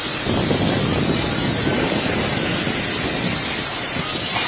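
A steady, loud hiss with a rough rushing, crackling noise underneath, unchanging throughout.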